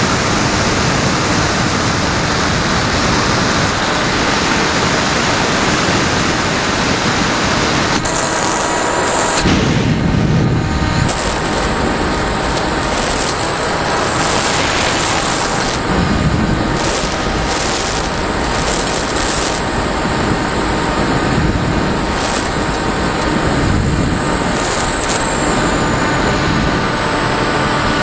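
Air rushing over the model glider's onboard camera in flight. From about eight seconds in, a high, slightly wavering whine joins it: the Firstar 2000 motor glider's electric motor and propeller running.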